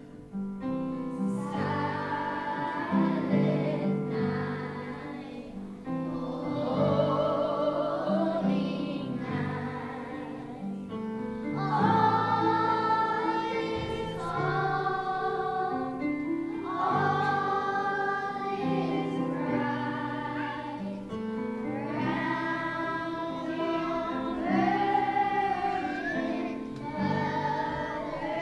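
A children's choir singing a song in phrases of a few seconds, over steady low accompaniment notes.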